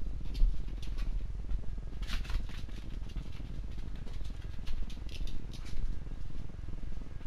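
Handling and walking noise picked up by a head-mounted camera: a steady low rumble with clusters of soft clicking and rustling, near the start, about two seconds in and around five seconds in.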